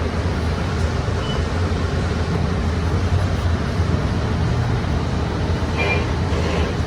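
Inside a moving bus: steady engine and road drone, with a short high-pitched creak about a second in and another creak near the end.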